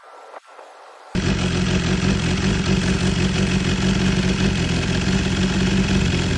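BMW S1000RR's inline-four engine running steadily at idle, loud, coming in suddenly about a second in.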